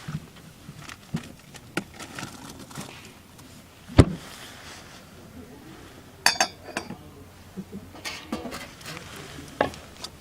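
Metal cookware and utensils being handled: scattered clicks and clinks, a sharp knock about four seconds in, and a brief ringing metal clink a little past the middle.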